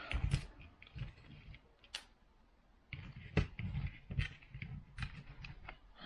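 Light clicks and taps of small screws and the jump starter's plastic case being handled as screws are set into their holes by hand, with a few sharper clicks scattered irregularly and a short quiet stretch in the middle.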